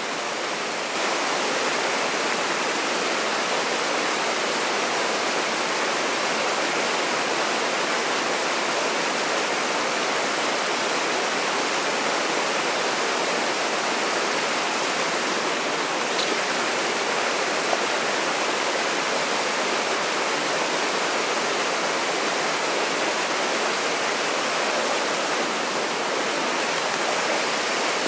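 Small waterfall on a mountain creek pouring into a plunge pool: a steady, even rush of falling water, a little louder about a second in.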